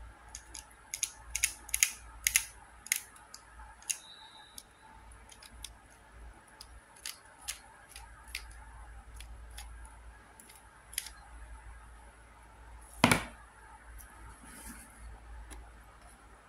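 Plastic clicks of a QiYi Super Floppy 1x3x3 puzzle being turned by hand: a rapid run of sharp clicks in the first four seconds, then sparser ones, and a single louder knock about thirteen seconds in.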